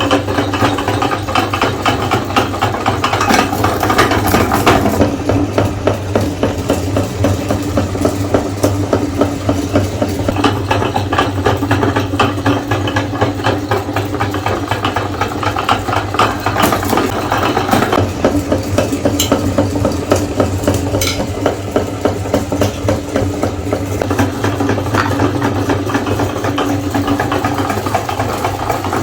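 Electric meat grinder running steadily, its motor humming with a fast, continuous rattle as it grinds candy bars.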